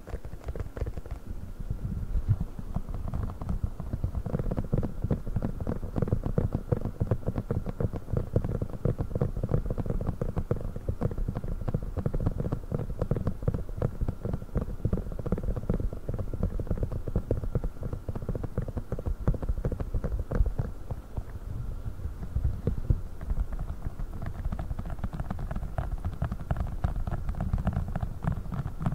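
Rapid, continuous tapping on a silicone funnel: many dull, soft taps a second.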